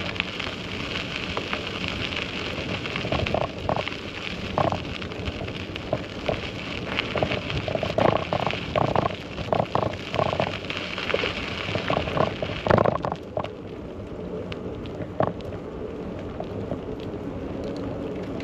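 Bicycle riding noise: tyres rolling over a rough surface with a steady crackling rush and irregular knocks and rattles. The rushing noise drops away about 13 seconds in.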